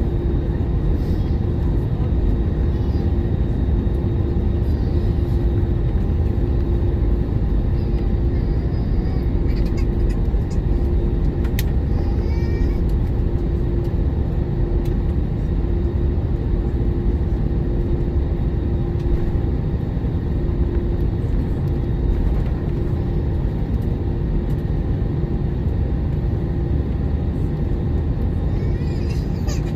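Steady low rumble inside the cabin of an Airbus A321-200 airliner, jet engine and airframe noise, with a steady hum running through it.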